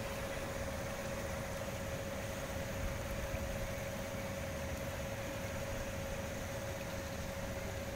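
A steady mechanical hum with one constant mid-pitched tone over an even background hiss.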